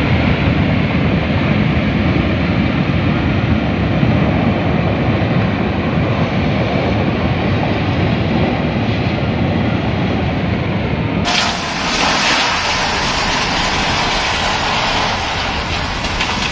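Rushing floodwater, a loud steady low rumble. About eleven seconds in it abruptly changes to a brighter, hissier rush.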